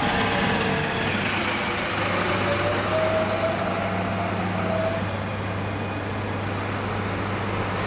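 Single-deck bus driving past and pulling away, its engine running steadily with a whine that wavers in pitch.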